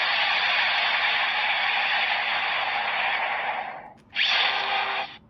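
A toy transformation belt's small speaker playing a loud whooshing sound effect for a drawn card in Survive form. It fades out just before 4 s in, and a second, shorter whoosh follows soon after.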